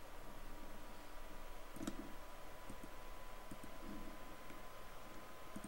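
A few faint computer mouse clicks over a low steady electrical tone and hiss.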